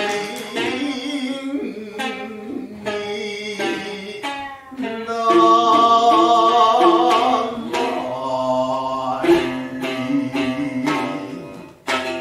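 Gidayū-bushi chanting by a bunraku tayū, sung narration with a long wavering held note around the middle, accompanied by sharp plucks of a futozao shamisen.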